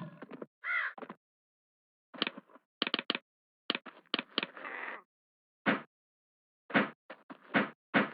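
Irregular sharp knocks and taps, several in quick succession, separated by silences.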